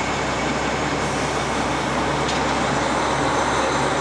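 JR Hokkaido KiHa 40 diesel railcar engines running at idle, a steady low drone, as one car creeps up to couple with the other.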